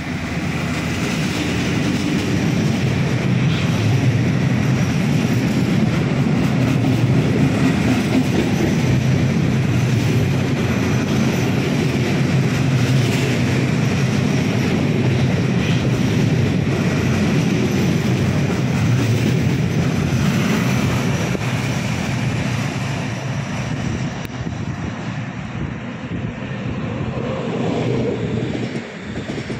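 Freight train passing close by: an SBB Re 420 electric locomotive goes by first, followed by a long run of intermodal wagons carrying trailers and swap bodies. The wheels keep up a steady rumble on the rails, which fades near the end as the last wagons go by.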